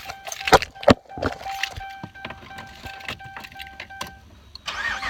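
Keys jangling and two sharp clicks as the ignition key is put in and turned on a 2010 Dodge Ram 1500, then the dashboard warning chime dinging repeatedly in a steady tone until about four seconds in, just before the engine is started.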